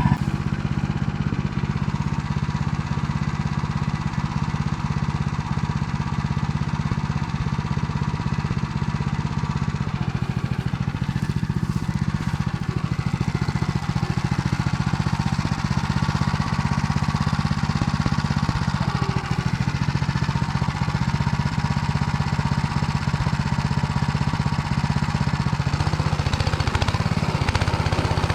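Engine driving a Motor Sich rotary tiller, running steadily under load as the tines mill barley stubble into damp soil. The engine note shifts slightly near the end.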